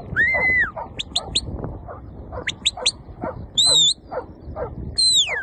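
Shepherd's whistle commands to a working sheepdog: quick triple pips, a held high note, a brief wavering note, and a long falling whistle near the end, meaning go forward quicker. Under them, a dog barks steadily, about twice a second.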